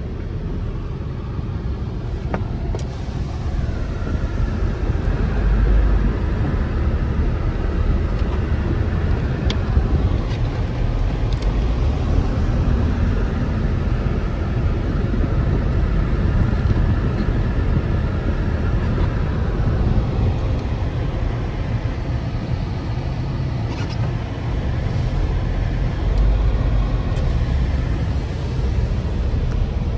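Car driving slowly on a wet, icy road, heard inside the cabin: a steady low rumble of engine and tyres, with a few faint clicks.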